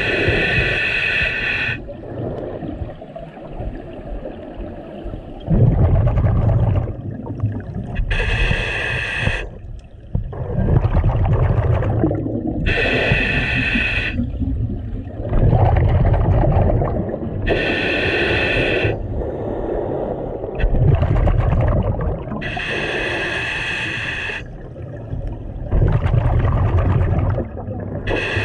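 A scuba diver breathing through a regulator underwater: a short hiss of inhaled air about every five seconds, each followed by a low bubbling gurgle of exhaled air.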